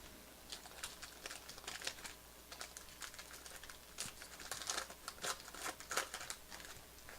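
Faint crinkling and rustling from baseball cards and their wrapping being handled: a quick, irregular run of soft crackles and scrapes.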